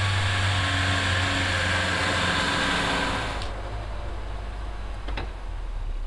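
SUV engine running as it drives slowly through deep snow, a steady low hum under a broad hiss of tyres and snow. The hiss drops away about three and a half seconds in, leaving a quieter engine hum, and there is one short click near the end.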